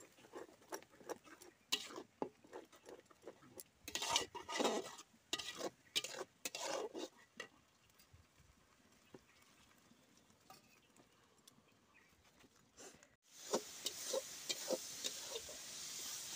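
Long metal spatula stirring and scraping a thick curry in a metal kadai: a quick run of scrapes and clacks, thinning out midway. After a cut about 13 seconds in, the masala sizzles steadily in the hot pan under continued stirring.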